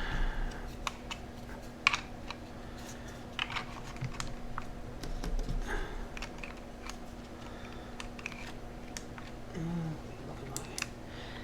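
Scattered light clicks and taps of small plastic parts being handled, over a steady low hum.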